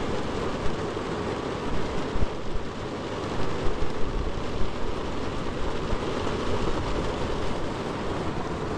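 Heavy rainstorm: a steady downpour, louder in brief gusts now and then.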